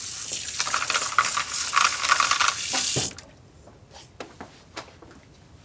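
Kitchen faucet running into a jug, filling it with water; the flow cuts off abruptly about three seconds in, followed by a few faint knocks.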